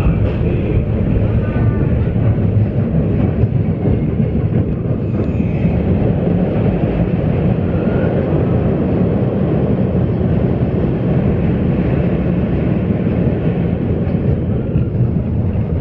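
Big Thunder Mountain Railroad mine train cars rolling on their steel track: a steady, loud rumble of wheels.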